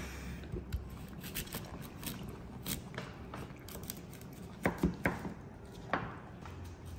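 A chef's knife slices a peeled sweet potato into rounds on an end-grain wooden cutting board, the blade knocking on the board with each cut. It is a handful of sharp knocks at irregular intervals, three of them in quick succession a little past halfway.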